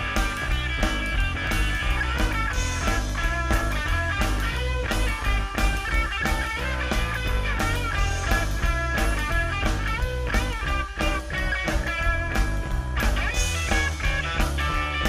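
Live rock band playing at full volume: electric guitar, electric bass and drum kit with a steady driving beat.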